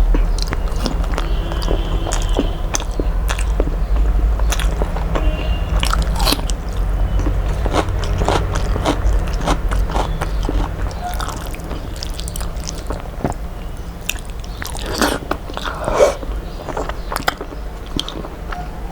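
Close-miked eating sounds: irregular crunching, chewing and wet smacking clicks, over a low steady hum.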